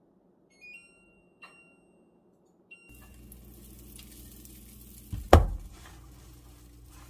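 Kitchen dishes and containers being handled: three small ringing clinks, then, over a steady low hum, a heavy double clunk a little past five seconds in.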